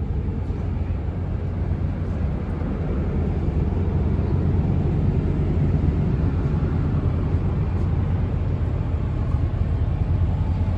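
Steady low rumble of a tour bus's engine running, heard from inside the bus, swelling slightly about four seconds in and then holding even.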